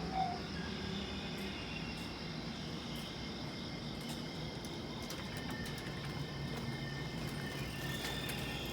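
Railway level-crossing warning bell sounding its last ding about a quarter second in and then falling silent, as the crossing clears after the train. A steady low hum follows, with faint high steady tones above it.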